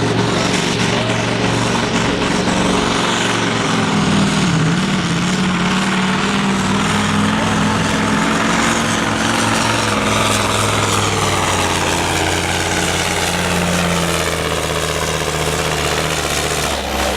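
Super sport class pulling truck's engine running hard under load as it drags the sled, its pitch dipping about four seconds in and then holding steady, before cutting off abruptly near the end. The engine is failing on this run, 'dying' as it nears the finish.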